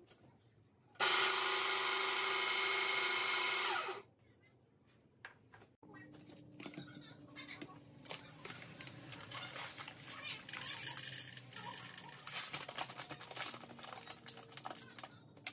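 Baratza Sette burr grinder motor running with a steady high-pitched whine for about three seconds, then stopping. After it come faint clicks, knocks and the rustle of a coffee bag being handled on the counter.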